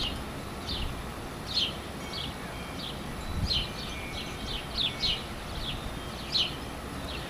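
Small birds chirping: a scattered series of short, high chirps over a steady outdoor background, with a brief low rumble partway through.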